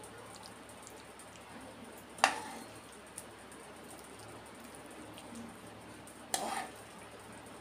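A steel spoon scooping cooked prawns from a non-stick frying pan, with two sharp metallic clinks that ring briefly, about two seconds in and again about six seconds in.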